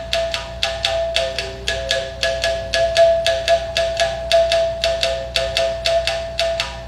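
Mouth bow played by striking its string with a thin stick: a rhythmic twanging of about four strokes a second, with ringing overtones whose pitch shifts to carry a melody.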